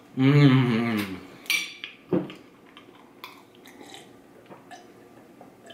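A man's long hummed 'mmm' of enjoyment with a wavering pitch, mouth full of chocolate cake, for about the first second. Then a click and a knock, and faint small sounds of swallowing as he drinks a glass of milk.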